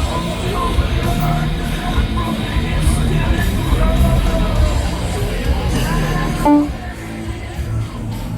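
Loud live heavy metal with distorted electric guitar playing. It drops back suddenly to a quieter level about two thirds of the way through.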